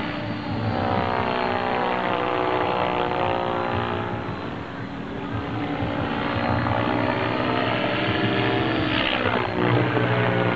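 Compass 7HV electric RC helicopter in flight, its main rotor spinning at 1900 rpm headspeed: a steady rotor buzz and motor whine. The pitch slides down over the first few seconds and rises again near the end as it moves about the sky.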